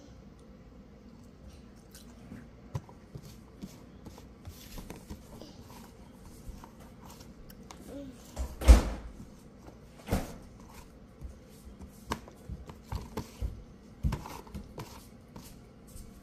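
Toddler chewing and smacking on orange segments, with small wet mouth clicks, and a few knocks, the loudest about nine seconds in.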